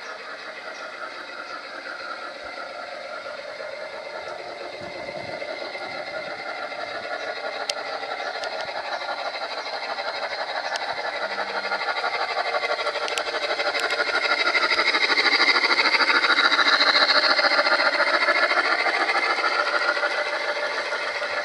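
Gauge 1 model train, an MTH RailKing Erie Triplex locomotive with its freight cars, running along the garden track with a steady rattling and whirring of wheels and drive. It grows louder as it approaches and passes close by, loudest in the second half.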